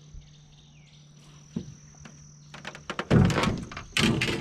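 Insects trilling steadily in a high tone, then, about three seconds in, a loud rough scraping and rustling noise in two bursts.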